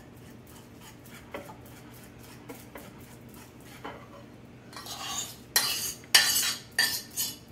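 Fork mashing a banana on a plate, with faint light taps. From about five seconds in come louder scrapes and clinks of the fork against the plate and the mixing bowl as the mash is scraped off into the bowl.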